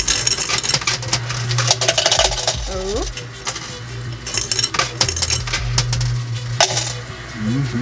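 Quarters dropping into a coin pusher and clinking against the coins on its playfield in many rapid, irregular clicks, over a steady low hum.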